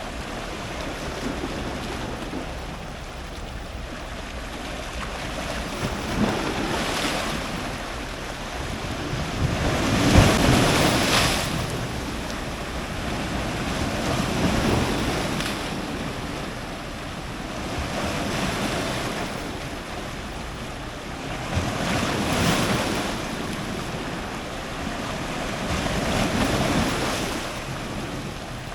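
Ocean surf breaking on rocks close to the microphone: a steady rush of water that swells with each wave every few seconds, the loudest surge about ten seconds in.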